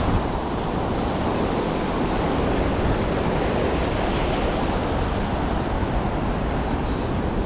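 Fast mountain river water rushing steadily down a concrete channel and over low weirs, a continuous even rush of white water.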